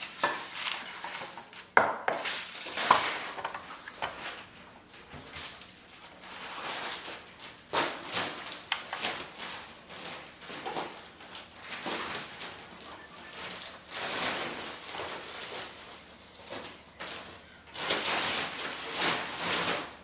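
Kitchen handling noises: irregular rustling with a few sharp knocks of dishes or a tray as cookie dough is shaped into balls by hand.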